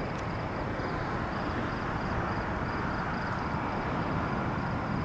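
Steady, even engine rumble of a jet airliner on final approach with its landing lights on. Faint high chirps repeat about three times a second over it.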